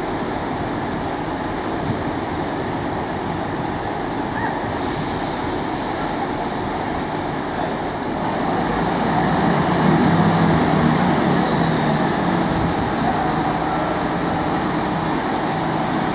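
Diesel engine of a Class 158 diesel multiple unit running at the platform, growing louder with a stronger low engine note from about eight seconds in.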